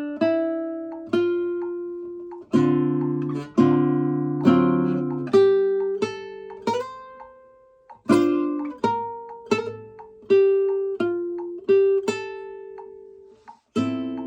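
Kazuo Yairi CY 130 acoustic guitar played unaccompanied: plucked chords and single notes, each ringing out before the next, with a slower run of held single notes in the second half.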